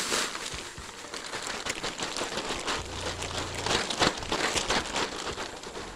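A dust collector bag crinkling and rustling as it is shaken out, with sawdust pouring from it in irregular crackles.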